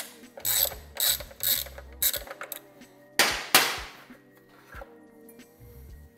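Ratchet wrench clicking through about four short strokes, undoing the nut that holds the old rectifier on a Honda CT90's frame. A little past the middle come two louder scraping rattles of metal.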